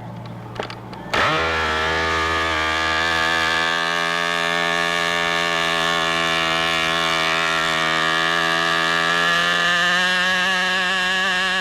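Model airplane engine running at a steady high pitch. It comes in loudly just over a second in, after a quieter stretch with a few clicks, and its pitch shifts slightly near the end.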